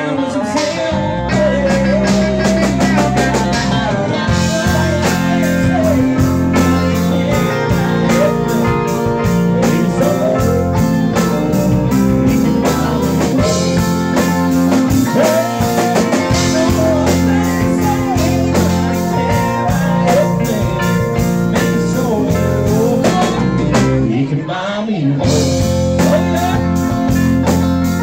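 Live country band playing loudly: a male lead vocal over electric guitar, bass guitar, keyboard and drums, with a brief drop in the drums and cymbals about 24 seconds in.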